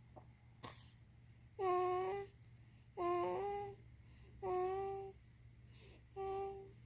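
A young child humming four short, steady 'mmm' notes while eating, each held for under a second, with a short pause between them.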